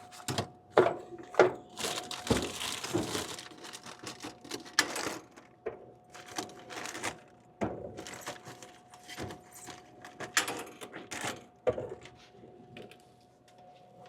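Coins being loaded into a vending machine's coin changer: many sharp clicks and clinks of coins handled and dropped, with a rustling stretch about two seconds in. A faint steady hum runs underneath.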